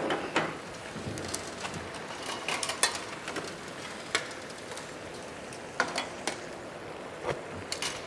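Food deep-frying in hot oil, a steady sizzle broken by many scattered sharp crackles and pops.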